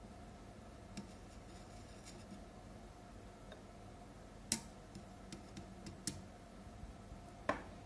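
Faint steady background with a few light clicks and taps, the loudest about halfway through: a soldering iron tip knocking against a plastic cup of homemade flux paste and the metal case of a power transistor.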